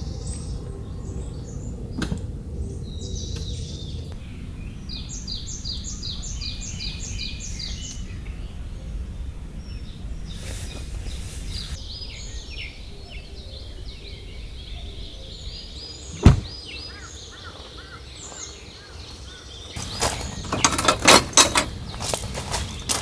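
Forest ambience with a steady low rumble, and a bird calling a quick run of about seven short high notes early on, with other faint chirps. A single sharp knock comes about 16 seconds in, and a cluster of clicks and knocks near the end.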